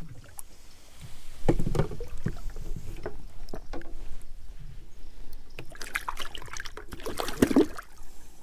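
A hooked snook splashing and thrashing in the water beside a small boat, with irregular splashes and knocks, loudest about a second and a half in and again near the end.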